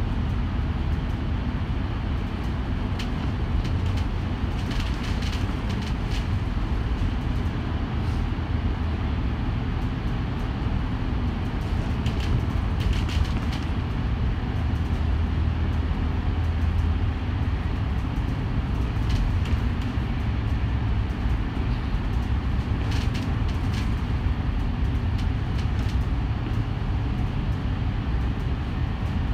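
A city bus running along the road, its engine and tyres making a steady low rumble that swells a little around the middle. Short rattles are heard now and then, around five times.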